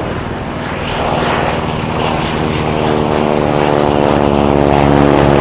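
Stearman biplane's radial engine and propeller running with a steady drone as it flies by low, growing steadily louder as the plane comes closer.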